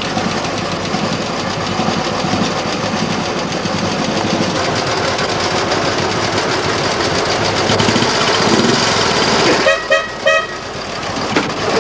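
Royal Enfield motorcycle engines running steadily. About ten seconds in, a motorcycle horn gives a quick string of short toots.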